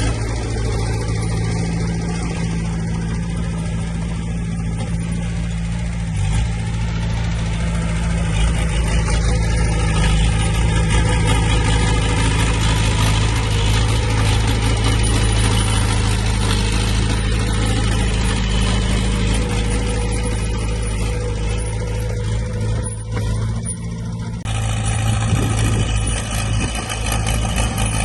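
Diesel engine of heavy earthmoving machinery running steadily under light load, a low pitched hum, with an abrupt change in tone about three-quarters of the way through.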